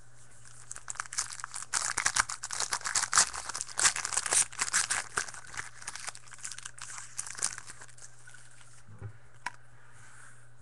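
A trading card pack's wrapper being torn open and crinkled by hand. It is a dense run of crackles that starts about a second in, is loudest over the next few seconds and dies away around eight seconds in.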